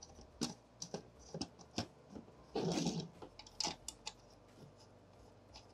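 Light clicks and knocks of metal and plastic parts as a clamp-on ultrasonic flow meter mounting frame is screwed into place on its spacer bar, with a short rasping scrape about two and a half seconds in.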